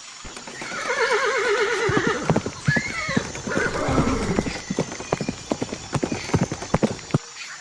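A horse whinnies with a long quavering call about a second in, followed by a shorter call. Hooves clop in an uneven run of beats that stops shortly before the end.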